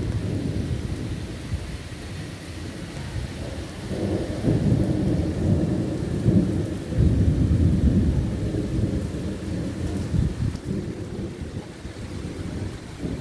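Thunder rolling over steady rain. A deep rumble swells about four seconds in, is loudest in the middle, and dies away near the end, while the rain hiss keeps on throughout.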